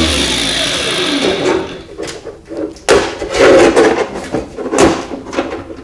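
Cordless angle grinder spinning down with a falling whine after cutting a tin can, then thin tin cans knocking and clattering together several times as they are handled and fitted one into another.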